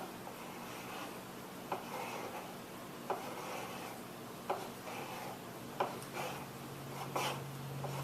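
Kitchen knife slicing hot dogs into pieces, the blade knocking down on the cutting board with each cut: six sharp knocks about a second and a half apart. A low hum starts near the end.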